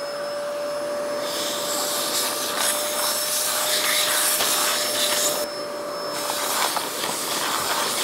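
Canister vacuum cleaner running steadily with a high motor whine. Its nozzle, fitted with taped-on drinking straws, sucks dust from bins of screws. A hiss of rushing air comes in about a second in, drops away briefly past the five-second mark, then returns.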